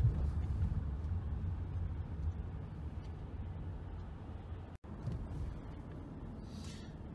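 Low, steady engine and road rumble inside a car's cabin while driving slowly in city traffic, broken by a momentary silent gap about five seconds in.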